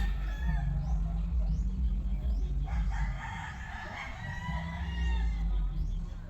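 Two long pitched animal calls over a steady low rumble: the first ends just after the start, and the second starts about three seconds in and lasts about two seconds.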